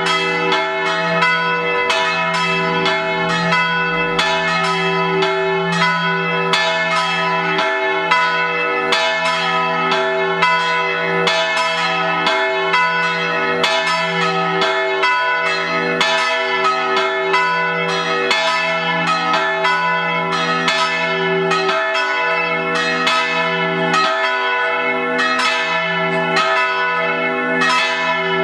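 Three cathedral church bells swung at half-swing (a mezzo slancio) in a solemn full peal (distesa) calling to Mass. Their strokes come fast and overlap in continuous ringing.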